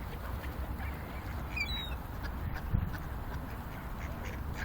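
Ducks quacking around a feeder scattering wheat, over a steady low rumble.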